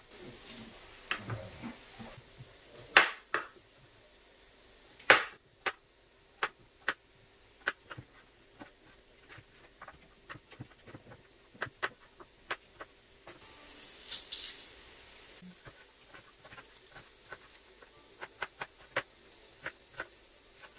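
Chef's knife chopping spring onion, cucumber and red onion on a plastic chopping board: a long run of irregular knocks of the blade on the board, two of them louder a few seconds in.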